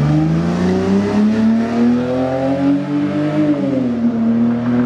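Lexus GS300's 2JZ-GE inline-six, breathing through a Tanabe Medallion Touring cat-back exhaust, accelerating away with its pitch rising. The pitch drops at an upshift about three and a half seconds in, then climbs again.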